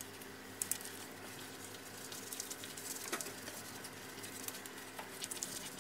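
Tanning mitt rubbing over bare skin as fake tan is spread: a faint, soft swishing with many small crackly ticks.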